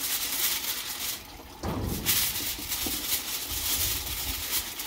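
Aluminium foil crinkling as hands fold and press it up around a piece of meat, with a soft thump a little under two seconds in.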